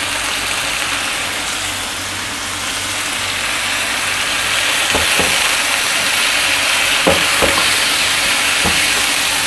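Marinated chicken pieces sizzling in hot oil with onions and garlic in a frying pan, the sizzle growing a little louder about halfway through. A spatula stirs them, knocking against the pan a few times in the second half.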